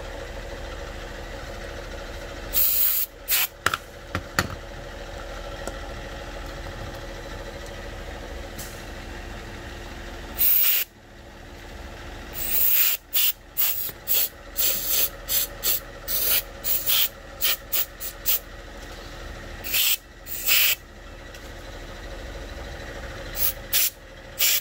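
Aerosol carb and choke cleaner sprayed onto the connector pins of a small CAN bus electronic module to clean it out, in many short hissing bursts with a couple of longer sprays, about three and ten seconds in. A steady background hum runs underneath.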